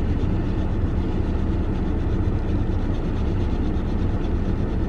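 Steady low rumble of a car heard from inside its cabin.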